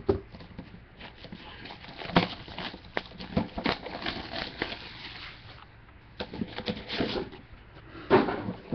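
Clear plastic shrink-wrap being torn and crinkled off a sealed trading-card box, in irregular crackles, with a louder bump near the end.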